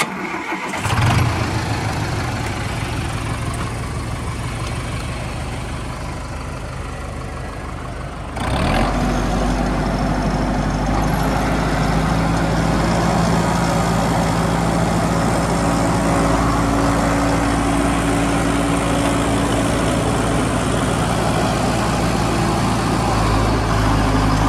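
Sonalika Tiger DI 65 4x4 tractor's common-rail diesel engine running. About eight seconds in it turns louder and steady as the tractor pulls a cultivator through the soil.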